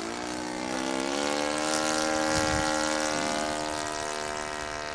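Radio-controlled Piper Cub model airplane's engine and propeller in flight overhead. The engine note rises in pitch over about the first second and then holds steady, growing louder to a peak about halfway through before easing off a little.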